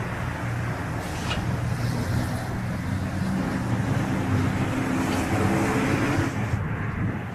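Aircraft engines droning during a landing in strong wind, a steady hum of several pitches under a noisy rumble; the high hiss cuts off suddenly near the end.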